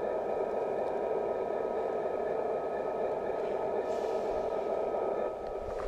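Model train running on the layout track: a steady rolling hum with a faint whine over it, easing a little about five seconds in.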